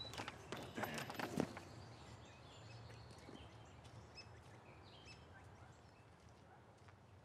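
A few knocks and rustles in the first second and a half as a man climbs over a wooden fence. Then quiet outdoor ambience with faint bird chirps.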